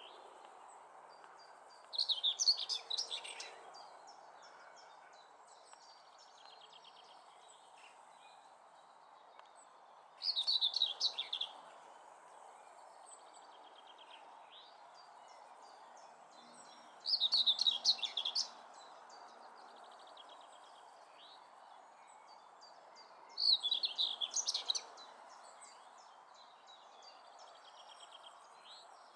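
Common whitethroat singing: four short, scratchy, rapid warbling phrases spaced about six to eight seconds apart, over steady low background noise.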